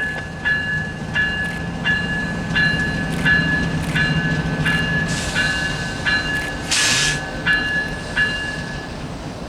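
Railroad crossing bell ringing steadily, about three strikes every two seconds, over the low rumble of a diesel locomotive; the bell stops shortly before the end. A brief hiss sounds about seven seconds in.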